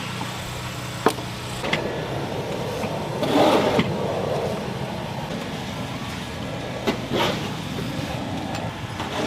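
Snow shovelling: sharp knocks of a shovel blade on the pavement and a louder rough scrape about three and a half seconds in, over a steady low hum that stops about a second and a half in.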